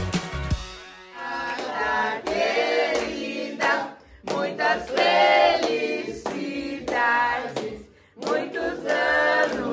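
A group of voices singing a birthday song together, in phrases with short breaks about four and eight seconds in. A music track cuts off within the first second.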